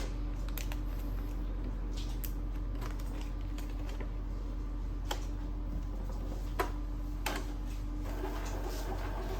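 A few light, separate clicks and taps over a steady low hum, from handling work on an inkjet printer.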